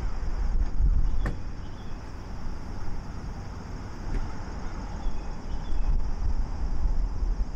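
Wind buffeting the microphone: a low rumble that swells and fades unevenly, with one sharp click a little over a second in.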